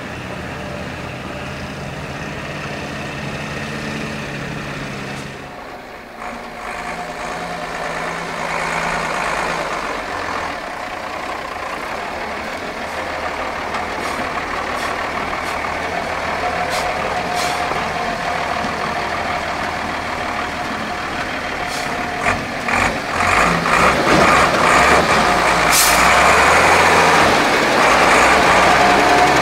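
Mercedes-Benz Unimog U1400's six-cylinder diesel engine working as the truck crawls over rough off-road ground, growing louder as it comes close, with a steady whine over the engine. Near the end there are several sharp knocks and clatters from the truck over the uneven ground.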